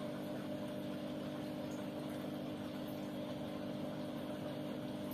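Steady low machine hum made of a few constant tones, unchanging throughout.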